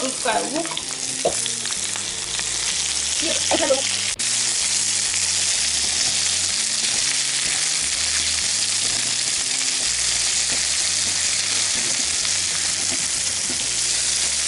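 Sliced onion sizzling as it fries in hot oil in a frying pan, being stirred with a silicone spatula. The hiss builds over the first couple of seconds after the onion goes in, then holds steady.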